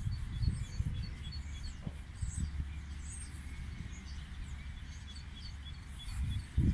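Wind gusting on the microphone in an uneven low rumble, with small birds giving short, repeated high chirps throughout.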